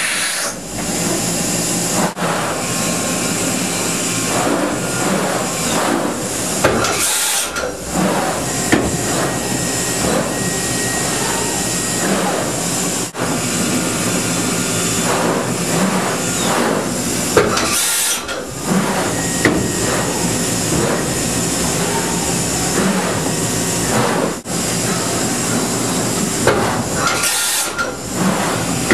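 Enshu JE60G horizontal machining center running through its motions: the rotary pallet table indexing and the spindle head moving, with a steady mechanical whir and clunks. Three short, sharp hisses of air come about ten seconds apart.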